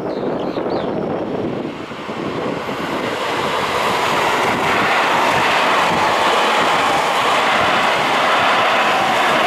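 Electric commuter train of the Seibu Shinjuku Line passing close by at a level crossing: the wheel-on-rail noise and rumble swell about two seconds in, then stay steady and loud.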